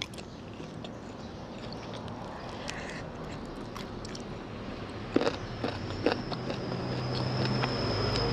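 Close-miked chewing and biting while eating fried noodles and chicken bones, with scattered small clicks and crunches. A few sharper clicks come about five seconds in, followed by a steady high-pitched tone that holds to the end.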